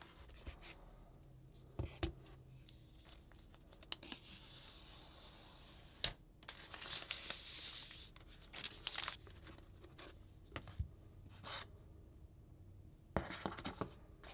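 Faint unboxing handling of an iPad Pro box. The lid slides off, and the tablet's protective plastic wrap is lifted and peeled with a rustling, tearing crinkle in the middle. Light clicks and knocks of cardboard and packaging are scattered throughout, with a cluster near the end.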